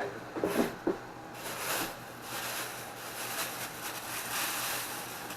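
Plastic bag rustling and crinkling as it is handled, in irregular swells. A brief bit of voice comes about half a second in.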